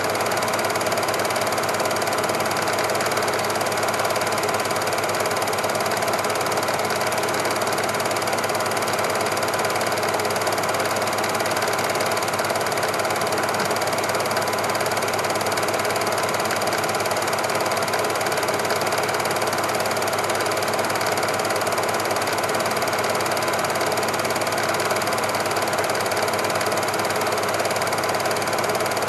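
Super 8 film projector running, its mechanism making a steady, fast, even clatter.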